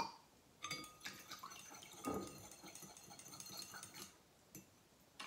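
Mango juice poured from a glass into a bowl of warm dissolved jelly: a faint trickling splash lasting about three seconds, then dying away.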